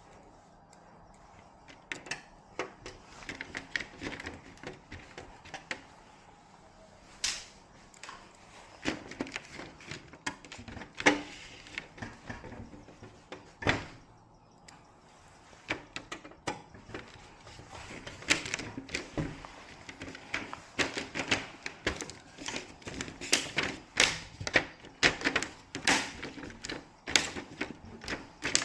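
Irregular clicks and knocks of small hard objects being handled, sparse at first and coming thick and fast in the second half.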